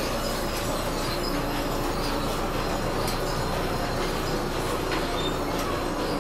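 Old belt-driven weaving-mill machinery, all run from a single motor through shafts and belts, running with a steady rumbling clatter and a few faint clicks.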